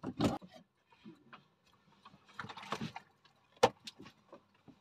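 Fishing tackle handled on a boat: scattered clicks and knocks of rod and reel, with one sharp click about three and a half seconds in.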